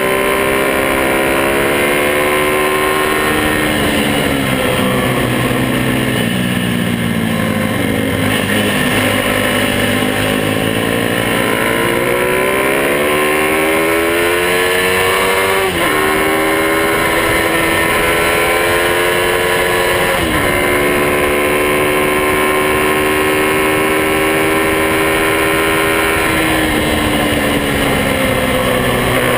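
Small motorcycle engine running close by: its pitch falls steadily as it slows, then climbs as it accelerates, with two sudden pitch drops mid-run like gear changes, holding steady before easing off near the end.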